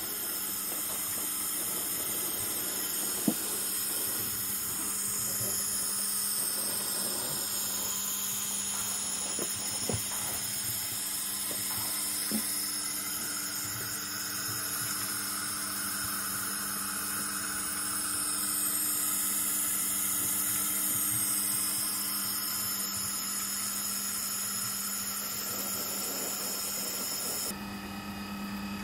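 Homemade stainless-steel coffee roaster running on a propane gas burner: a steady hiss and hum, with a few sharp clicks.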